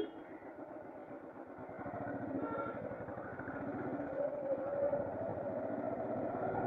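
Motor vehicle engine running on the road, with a steady, rough drone that grows louder about two seconds in.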